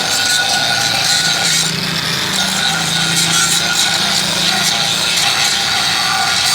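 Grinder working the surface of an old frying pan: a steady rasping, machine noise with a constant motor hum, as the pan is ground to restore it.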